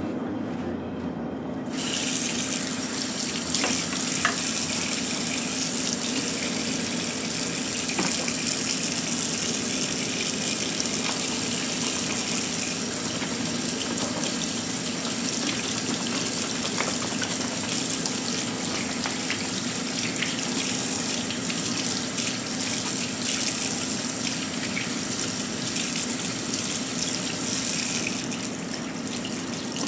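Kitchen faucet running into a sink, the stream splashing over an emptied capacitor can held under it to rinse out its oil. The water comes on full about two seconds in and eases slightly near the end, with a few small knocks from handling.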